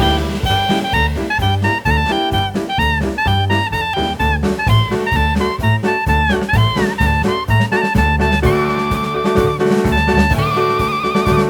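Background music: an upbeat jazz track with a saxophone-like lead melody over bass and drums.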